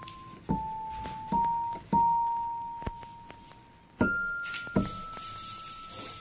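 Background music: a slow melody of single sustained piano-like keyboard notes, played one at a time, a new note every second or so.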